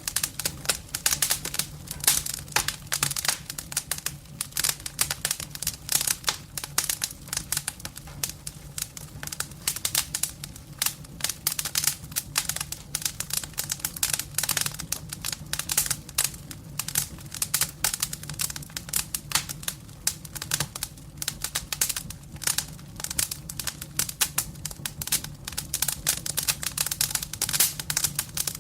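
Firewood burning in a fireplace: dense, irregular crackling and popping throughout, over a faint low hum.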